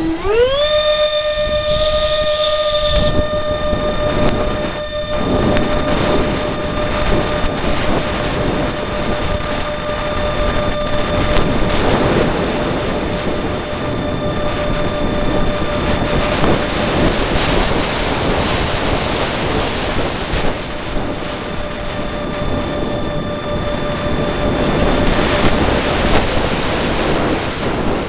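Electric ducted-fan unit of an RC A-10 model jet spooling up, its whine rising in pitch in under a second, then running at a steady throttle, with heavy wind rushing over the microphone.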